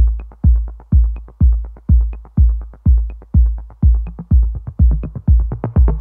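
Electronic dance music: a drum-machine kick on every beat, about two a second, with short ticking hits between the kicks.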